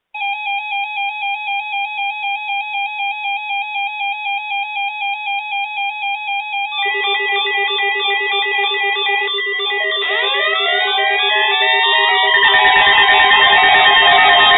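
Weather alert radio receivers sounding their alarms for a NOAA Weather Radio required weekly test. A shrill beep pulses about four times a second, more alarm tones join about seven seconds in, and rising siren-like sweeps come in about ten seconds in as the din grows louder.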